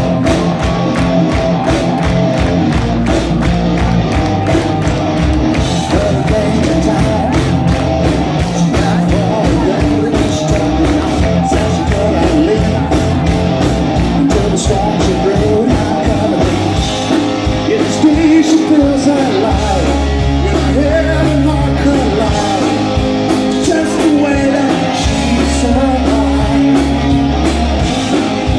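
Live rock band playing a song: drum kit keeping a steady beat under bass, electric guitars and a lead vocal.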